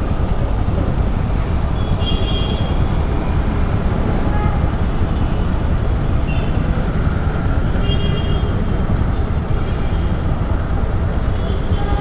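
Motorcycle engine idling at a standstill, a steady low rumble. City traffic runs around it, with a few brief faint high tones.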